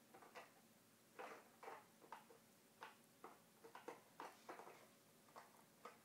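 Faint, irregular plastic clicks and knocks: a toddler's hand handling a plastic toy airplane and the pieces inside it.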